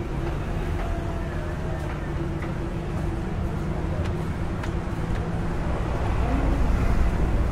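Street traffic noise: a steady low rumble of engines with faint voices, the rumble growing louder about six seconds in as a vehicle comes closer.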